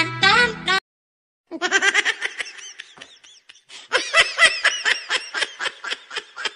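Music that cuts off sharply about a second in, then after a brief silence a long run of rapid, high-pitched laughter in quick repeated bursts.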